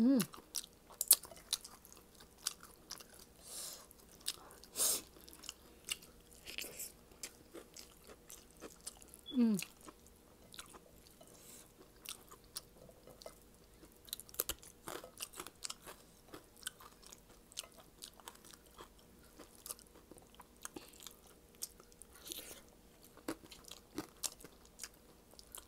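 Close-miked chewing and lip-smacking of someone eating shrimp in coconut sauce with rice, with many sharp wet clicks and occasional crunches. Twice, a short falling vocal sound, at the start and about nine seconds in.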